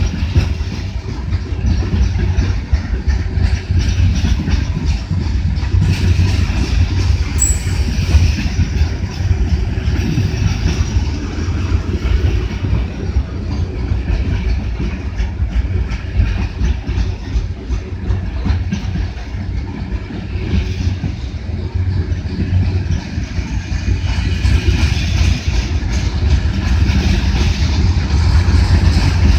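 Loaded coal hopper cars of a long freight train rolling past close by: a steady rumble and clatter of steel wheels on the rails, growing a little louder near the end.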